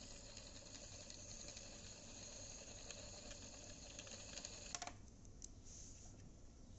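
Small homemade electric motor spinning a CPU cooling fan, giving a faint steady whir that stops suddenly about five seconds in. A few light clicks follow.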